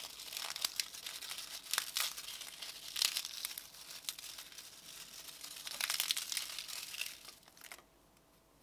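Puffed rice cakes being broken up by hand: a run of dry crackling and crunching as the cakes snap and crumble into small pieces, which stops about eight seconds in.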